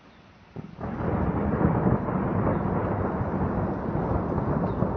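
Thunder: a sudden crack about half a second in, followed by a loud, sustained low rumble.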